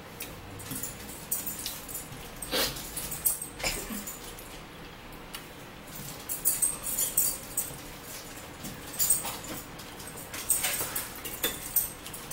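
Eating at the table: forks clicking and scraping on plates along with chewing, in irregular clusters of short, sharp clicks.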